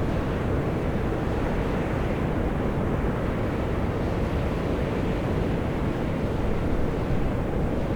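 Volcanic fumarole vents on Mt. Io (Atosanupuri) hissing and rushing steadily as steam jets out of the ground.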